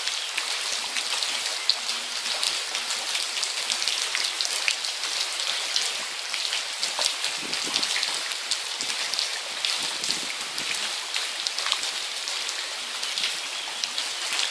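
Heavy rain falling steadily on flooded ground, paving and trees: a dense, even hiss sprinkled with many close drop splashes.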